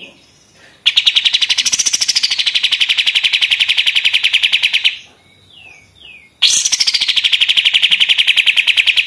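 Kapas tembak songbird singing its rapid, machine-gun-like rattling trill: two long trills of many evenly spaced notes a second, with a few short downward-slurred notes in the gap between them.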